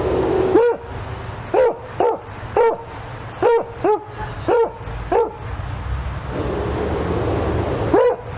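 A dog barking: about nine short barks in an uneven run, then a pause of a couple of seconds before one more bark near the end.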